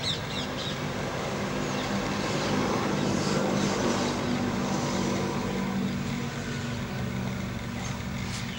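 An engine running steadily, growing a little louder a few seconds in and easing back toward the end.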